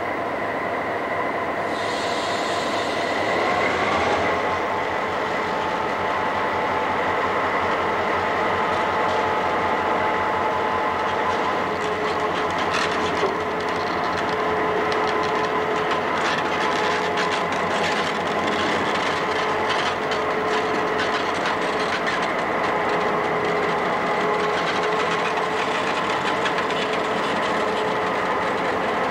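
Algoma Central diesel locomotive running, a steady mechanical rumble with a constant whine on top; the whine rises in pitch about three to four seconds in.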